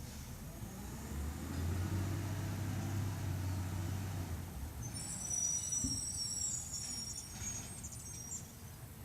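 Natural-gas trash truck engine running with a low hum that swells for a few seconds, followed by a high-pitched squeal lasting about three seconds in the second half.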